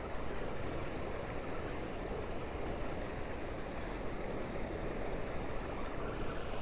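Steady rush of turbulent water churning below a dam spillway.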